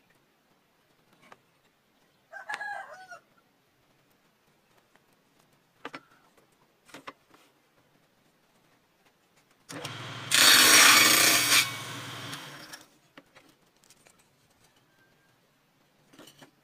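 A rooster crows once about two seconds in. Later a table saw cuts through a wooden strip for about three seconds, loudest in the middle, with the saw's motor hum underneath.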